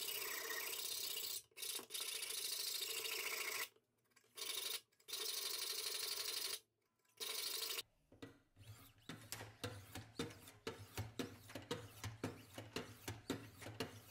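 Knife edge being sharpened on a Wicked Edge Go guided sharpener, its stones rubbed along both sides of a Damascus push dagger blade. For the first eight seconds there is an even scraping hiss in short stretches that break off sharply. After that come separate quick strokes, about three a second.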